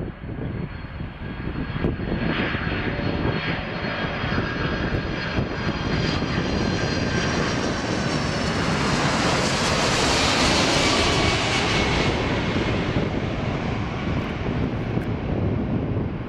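Boeing 747-400's four turbofan engines on landing approach, passing low overhead: a steady rumble with a high fan whine that builds to its loudest about ten seconds in, then begins to fade.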